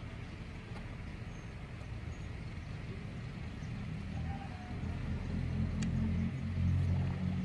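A low motor rumble that swells from about halfway through and is loudest near the end, like an engine coming closer.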